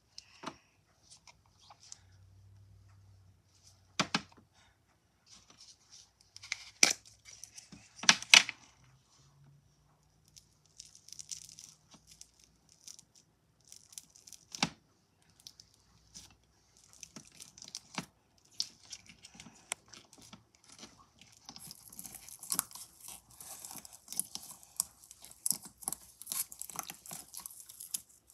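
Fingers poking and squeezing bubbly clear slime in a plastic tub, making crackling, popping squelches that grow denser over the last several seconds. Earlier, a few sharp clicks, the loudest about eight seconds in.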